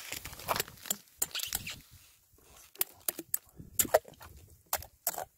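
Metal ice scoop knocking and scraping in a frozen-over ice-fishing hole, clearing out broken ice: a run of irregular sharp clinks and crunches of ice shards.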